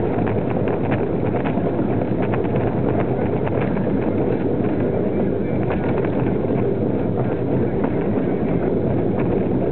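Brake van running along the rails: a steady rumble with many irregular clicks and rattles from the wheels on the track, and some wind on the microphone.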